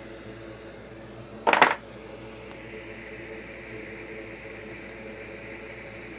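A short metallic clatter about a second and a half in, like a small metal tool set down on a workbench, followed by a couple of faint ticks, over a steady fan hum.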